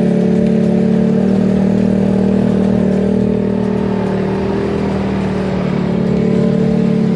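Engine of an open off-road buggy running at a steady speed while driving over a dirt track: a steady, even drone heard from on board.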